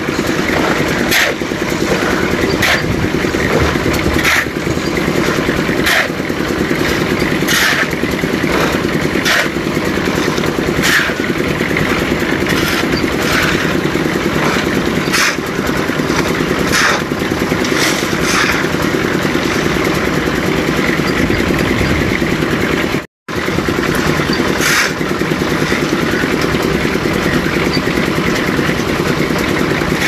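Concrete mixer's engine running steadily, with a steel shovel scraping through wet concrete and gravel about every second and a half.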